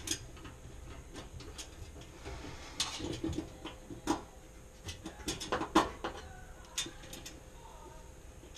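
Small screws and a screwdriver clicking and tapping against the stainless steel top of a gas countertop stove as the screws are started and threaded in by hand; scattered light clicks, more frequent about halfway through.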